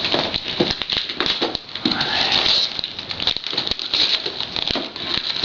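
Wrapping paper being torn and crinkled as gifts are unwrapped: a busy run of short, sharp crackles over a steady hiss.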